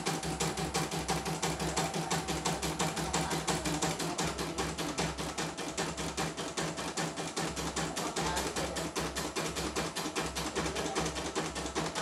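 CNY E900 portable embroidery machine stitching a test design: rapid, even ticking of the needle over a steady hum, with a low thrum that comes and goes. It is a test run after the machine, which had been completely dead, was repaired with new parts.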